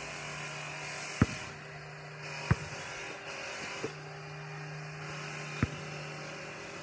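A basketball bouncing on pavement four times, irregularly, the loudest bounce about a second in. Under it a steady low motor hum, like a power tool running, stops and comes back twice.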